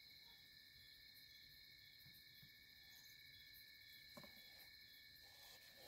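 Faint, steady chirring of crickets, several high thin trills holding at constant pitch, with one faint knock about four seconds in.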